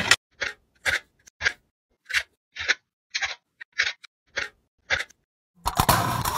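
A needle punching holes in aluminium foil stretched tight over a bowl: about ten short, crisp pops, roughly two a second. Near the end a louder, longer sound comes in.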